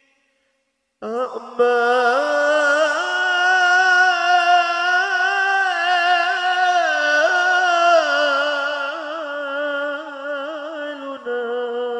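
Arabic nasheed singing. After about a second of silence, a voice comes in and holds long notes with wavering ornaments; the pitch steps up early on and settles lower near the end.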